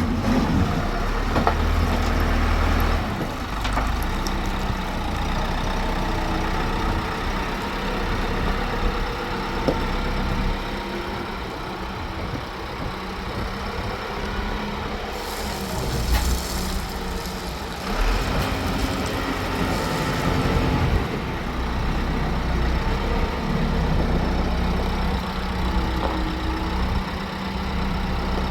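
A motor vehicle's engine running steadily, with a wider rush of noise about halfway through.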